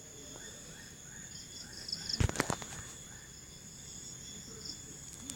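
Crickets and other insects trilling steadily, with a pulsing chirp repeating over them. A few sharp clicks or knocks come together about two seconds in.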